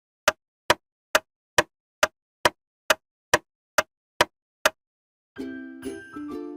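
Eleven sharp, evenly spaced ticks, a little over two a second, like a clock or timer ticking. They stop, and after a short pause cheerful music with jingle bells begins near the end.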